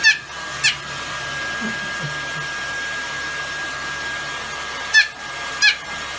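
Hair dryer running steadily with a thin high whine. Two pairs of quick, loud, high chirps falling in pitch cut through it, one pair near the start and one about five seconds in.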